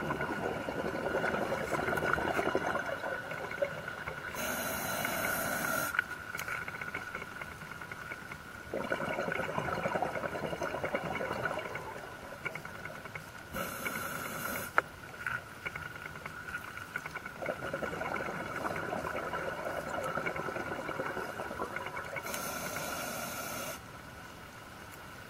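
A scuba diver breathing underwater through a regulator: three slow breath cycles, each a short, sharp hiss of inhalation and a longer rush of exhaled bubbles. A faint steady high tone runs underneath.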